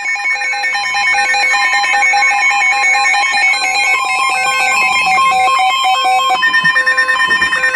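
Emergency alert tones on a NOAA Weather Radio broadcast, announcing a severe thunderstorm warning. A steady electronic tone holds throughout, while several other tones step on and off over it.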